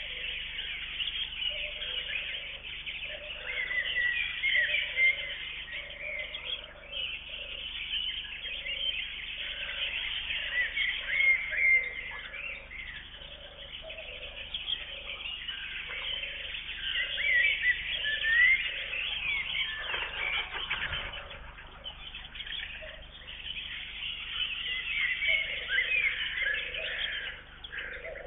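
Outdoor chorus of songbirds, many short chirps and trills overlapping, with a lower note repeated about once a second beneath them.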